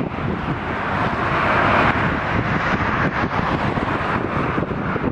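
Airbus A330-200 jet engines running on final approach as the airliner passes close by, a loud steady roar that swells to its loudest about two seconds in and then eases slightly. Gusty wind buffets the microphone underneath.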